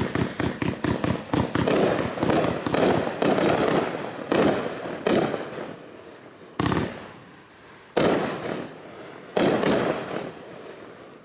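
A 28-shot, 500-gram consumer firework cake (Patriotic Waves) firing. A quick run of sharp shots comes in the first second and a half, then louder bursts follow one after another, each trailing off in a noisy tail from its strobe stars. Near the end it thins out to three single bursts about a second and a half apart.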